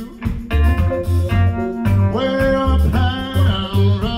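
A blues-soul band with a horn section playing live: saxophone, electric guitars, bass, drums and tambourine over a steady repeating bass beat.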